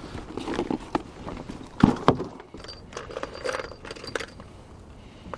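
Clinking and knocking of gear being handled in a rowing boat, with two sharp knocks about two seconds in.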